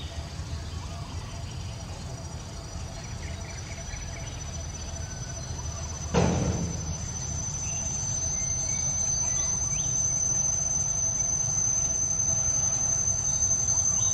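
Steady high-pitched insect drone, growing louder from about halfway through, over a low rumble. A single sharp knock about six seconds in.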